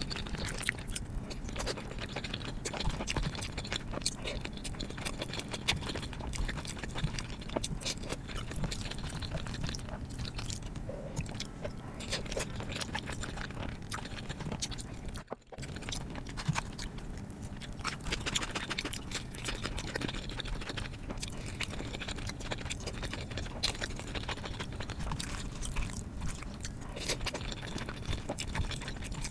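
Close-miked ASMR chewing and biting of pasta and lasagna, a steady stream of small wet clicks and mouth sounds. There is a brief drop-out a little past halfway.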